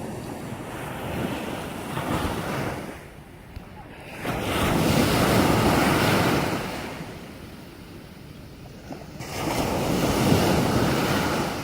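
Ocean surf: waves breaking and washing up the beach in surges. The loudest wave breaks about four seconds in, and another about nine seconds in.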